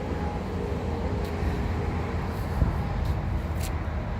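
Steady low engine rumble of motor vehicles in the background, with a brief knock about two and a half seconds in.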